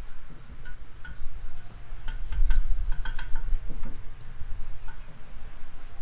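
A steady, high insect chirring, like crickets, under a low rumble, with a cluster of short knocks and clicks about two to three and a half seconds in.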